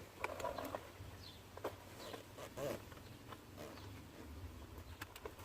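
Faint scattered clicks and light knocks from handling a removed pickup door trim panel and its wiring, over a low steady hum.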